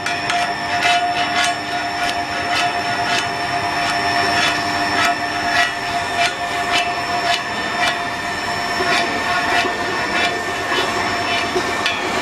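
Electric wire rope winch running, its drum turning as steel wire rope winds on, with a steady whine from the motor and gearbox. A regular clicking about twice a second runs through it.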